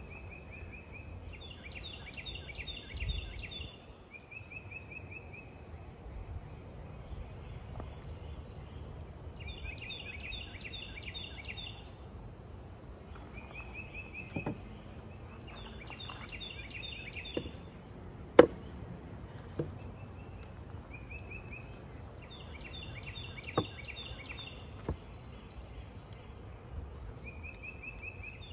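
A songbird singing, alternating a short, lower trill with a longer, higher trill every few seconds. A few sharp knocks stand out, the loudest about eighteen seconds in.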